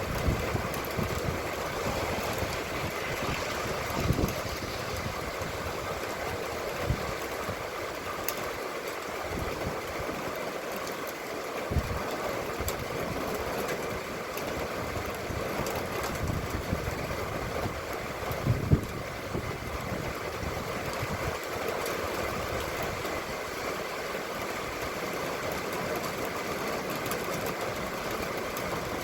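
Steady rain falling, with a few scattered low thumps.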